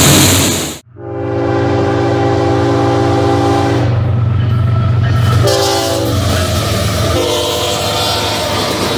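Rumble of passing locomotives cut off abruptly less than a second in, then a CSX diesel freight train's air horn: a long chord of several steady notes, a short blast, and another long blast, over the steady low rumble of the locomotive engines as the train comes by.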